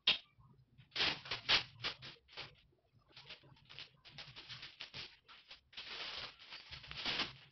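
Plastic stretch wrap being pulled off its roll and wound around a large canvas painting: irregular crackling and rustling in short bursts, with a faint steady low hum underneath.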